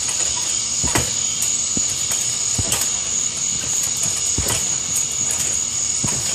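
A person bouncing and landing on a trampoline: the mat and springs give a thud with each landing, several times about a second apart, over a steady high-pitched hum.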